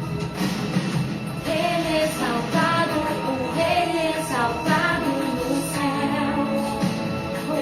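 Christian worship song in Portuguese playing, a woman singing a melody over instrumental accompaniment.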